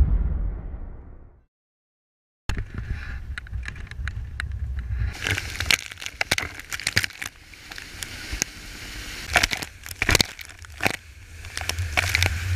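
An intro sting fading out over the first second or so, then about a second of silence, then water splashing and sloshing right at the camera, with scattered sharp knocks and a steady low rumble underneath.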